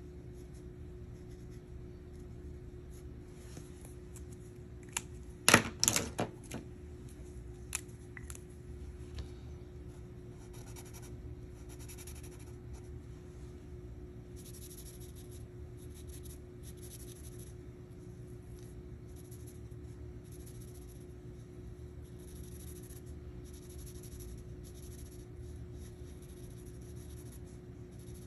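Sharpie felt-tip marker scratching on paper in short repeated strokes. About six seconds in comes a cluster of sharp clicks and knocks as one marker is put away and another taken up. A faint steady hum lies underneath.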